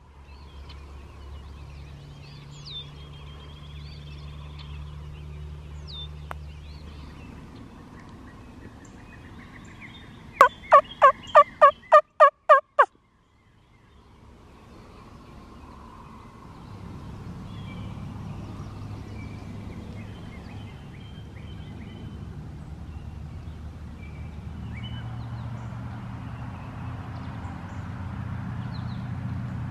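Wild turkey tom gobbling once, loud: a quick rattling run of about nine notes lasting some two and a half seconds, about ten seconds in. Faint songbird chirps and a low steady rumble run underneath.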